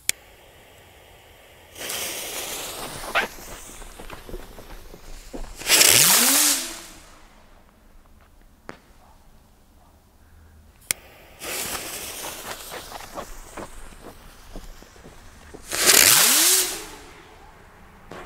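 Two Pyroland Schreckschraube flying spinner fireworks going off one after the other. Each hisses for a few seconds as it gets going, then gives a loud whoosh as it climbs, with a low tone that rises and then falls in pitch, about six and sixteen seconds in. The ascent is really loud.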